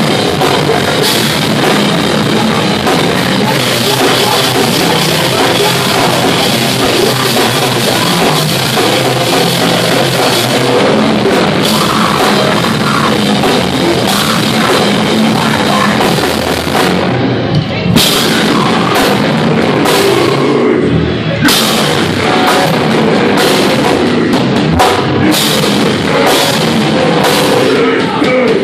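A metalcore band playing live and very loud: distorted electric guitars, bass and drums with cymbal crashes. The music thins briefly about two-thirds of the way through, then comes back in with a run of heavy accented hits.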